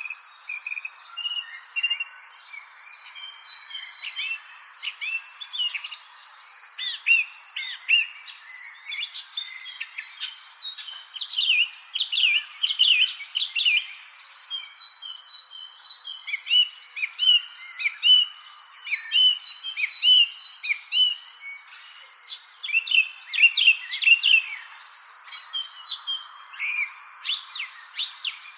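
Songbirds singing: many quick chirps and whistled notes, busiest in the middle and near the end, over a continuous high steady trill.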